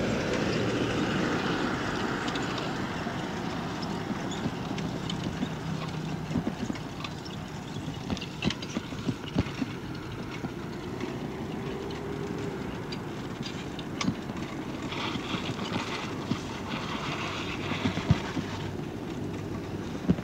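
Bicycle riding along a paved road: a steady rush of rolling and wind noise with frequent small clicks and rattles from the bike. A low steady hum, from traffic, runs for the first six seconds or so.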